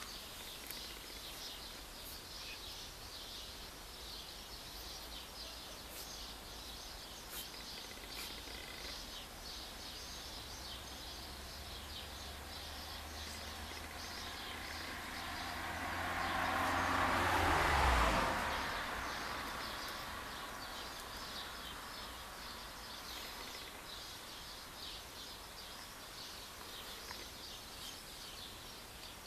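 Outdoor ambience with faint, scattered bird chirps. A vehicle passes: it builds over several seconds to its loudest about two-thirds of the way through, then fades away.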